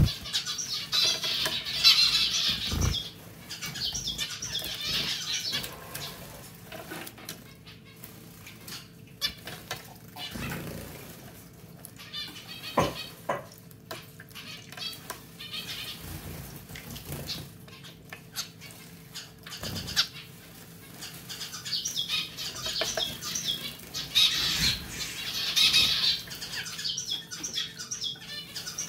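Zebra finches bathing in a pet water fountain, splashing and fluttering their wings in the water in rustling bursts, busiest at the start and again about three-quarters of the way through, with a few soft knocks in between over a faint steady hum.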